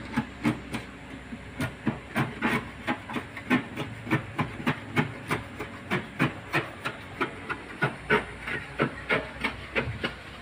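Hand sanding the blistered, brittle paint on a steel car door panel to strip the bubbled layer: rhythmic scratchy rubbing strokes, about three a second, with a short pause about a second in.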